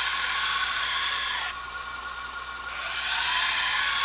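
Belt grinder running with a steady whine while a knife blade is drawn across its 120-grit belt in two grinding passes of about two seconds each, each a loud hiss of abrasive on steel. The passes are raising a wire edge along the second side of the blade, in the course of putting a convex edge on it.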